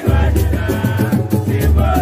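Samba music with singing over a busy percussion beat and a steady bass line.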